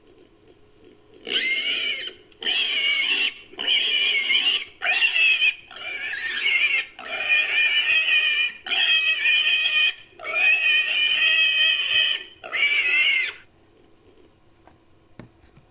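Pig squeals edited into a collared peccary sound effect: a string of about ten short, high-pitched calls in quick succession, then they stop.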